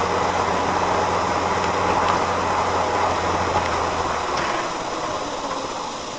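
Road and engine noise inside a moving car, picked up by a dashcam: a steady rush with a low engine hum that drops away about four seconds in, and the noise easing off gradually after that.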